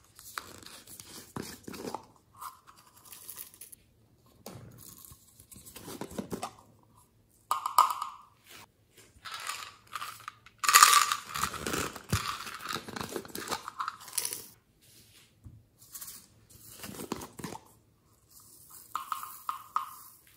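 Small plastic slime pots being handled and opened, and slime being pulled out of them with sticky crackling and tearing noises, in several separate bursts; the loudest comes about halfway through.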